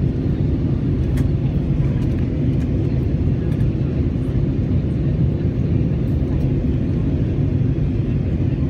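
Steady jet airliner cabin noise inside an easyJet Airbus A320-family plane in flight: a constant low rumble of engines and rushing air.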